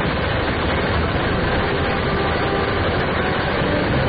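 Quad minigun firing in a sustained burst, its shots running together into one steady, unbroken roar.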